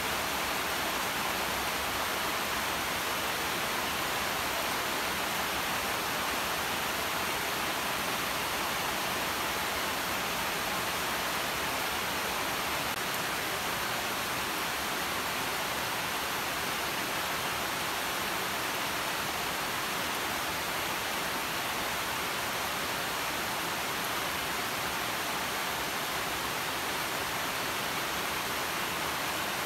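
Steady rain falling on leafy garden vines, an even hiss with no single drops standing out and no thunder.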